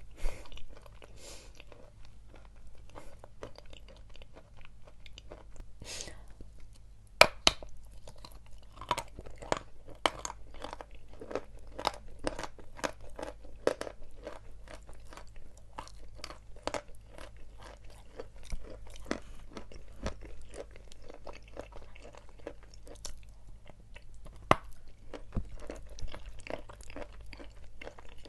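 Dry chalk being bitten and chewed: a steady run of crisp crunches, one or two a second, with a sharp, loud snap about seven seconds in.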